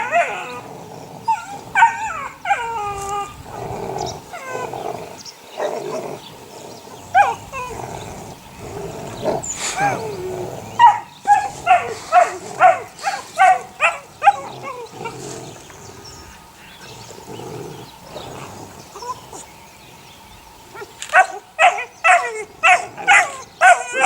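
Eight-week-old puppies whining and yipping: drawn-out whines that slide in pitch, then quick runs of short high yips at about three a second, around the middle and again near the end.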